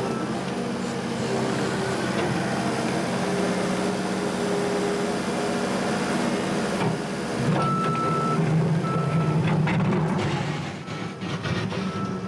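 New Holland C232 tracked skid steer's diesel engine running steadily under working throttle. In the second half it picks up load, and its reverse alarm sounds a few separate beeps as the machine backs up.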